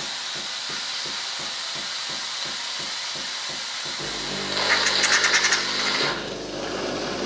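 Philips LatteGo 3200 espresso machine frothing milk, a steady hiss over a faint low pulsing from the pump. About four seconds in the frothing gives way to a motor hum with a loud rattle for a second or two, as the built-in grinder starts on the beans for the coffee.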